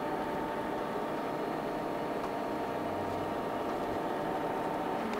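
Table drive of a Blanchard 20-36 rotary surface grinder running steadily, its motor and gearbox turning the round magnetic chuck with a steady whine and hum.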